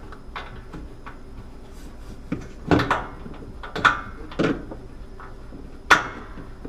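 A handful of sharp plastic-and-metal knocks and clicks from handling a washing machine lid hinge and a multi-bit screwdriver while working the hinge screws, the loudest near the end.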